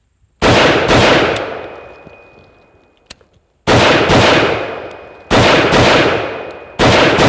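Rifle fired in quick pairs of shots, about half a second between the two shots of each pair: four doubles, the last right at the end. Each shot cracks sharply and echoes out over a second or more.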